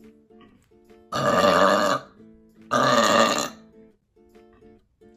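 Two long, loud forced burps from a person, the first about a second in and the second about a second and a half later, each lasting nearly a second. Quiet acoustic guitar music plays underneath.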